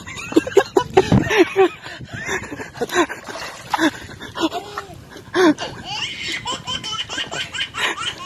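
People laughing in repeated short bursts.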